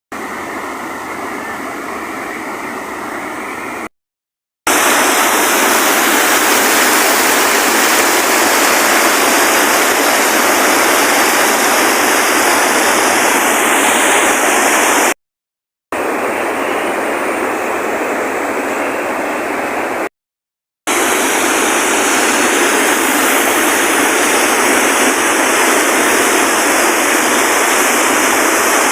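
Steady rushing water, like a stream running high after rain. It drops out into silence for under a second three times.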